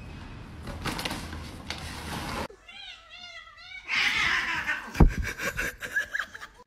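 A cat rustling about in a plastic shopping bag, then a cat's wavering yowl, repeated several times. After it comes a noisy scuffle between two cats, with a sharp thump about five seconds in and a few short chirps.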